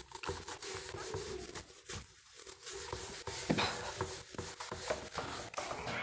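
Irregular taps, clicks and rustles of handling noise, scattered through the pause, over a faint steady hum.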